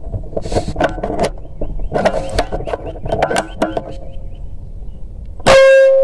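Scattered light clicks and knocks of the rifle being handled, then about five and a half seconds in a single loud, sudden air-rifle shot with a ringing tone after it.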